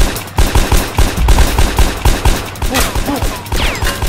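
Rapid automatic gunfire, about six shots a second, as a foam dart blaster is fired, with a few falling whistle-like tones near the end.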